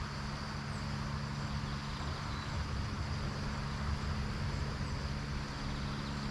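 A steady low mechanical hum, like a distant motor, over an even hiss. There are no separate knocks or calls.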